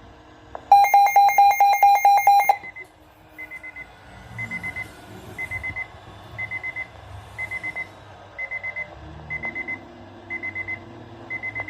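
Weather alert radio receiver's alarm going off: a loud buzzy beeping at about five pulses a second for two seconds, then quieter groups of four short high beeps repeating about once a second.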